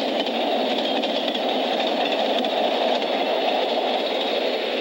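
Frisco freight train rolling past, its cars and then the caboose going by with a steady rumble of wheels on rail. The old film sound is thin, with little bass.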